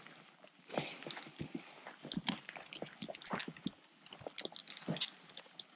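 Footsteps crunching on dry ground and brush: a string of irregular short crunches and clicks.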